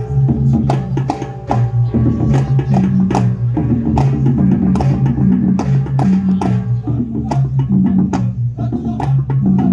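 Balinese balaganjur gamelan playing: rapid sharp cymbal and drum strokes, several a second, over a steady low hum of large gongs.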